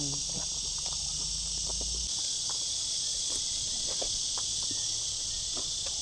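Crickets chirring in a steady, unbroken high drone, with a few faint scattered clicks.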